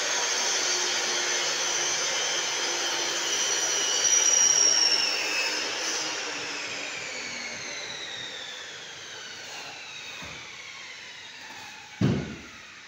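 Loud, steady machine noise with a whine that slowly falls in pitch and fades away over about twelve seconds, then a single thump near the end.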